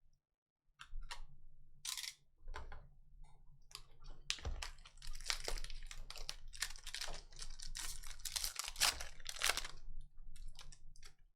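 Trading cards and their foil pack wrappers being handled: a quick, uneven run of clicks, snaps and crinkly rustles as cards are flipped and slid through the hands. It starts after about a second of hush and is busiest in the second half.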